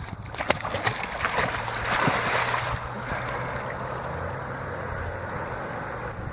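Water splashing and sloshing, with a few sharp splashes in the first second and a loud swell about two seconds in, then steady churning water over a low steady hum.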